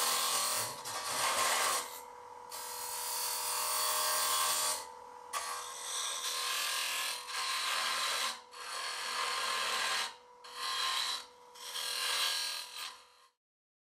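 Woodturning lathe spinning a box blank while a TurnMaster tool's cutter hollows the end grain, a hissing scrape of shavings coming off. The cutting comes in six passes of one to three seconds with short breaks, over a steady hum. All sound stops abruptly near the end.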